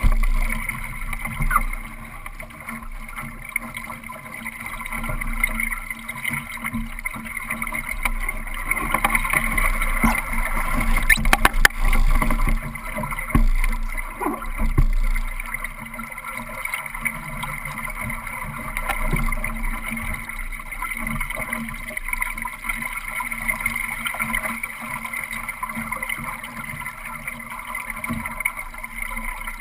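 Water rushing and gurgling along the hull of a Solo sailing dinghy under way, with a low, gusty rumble of wind on the microphone. A few sharp knocks from the boat's fittings come about halfway through.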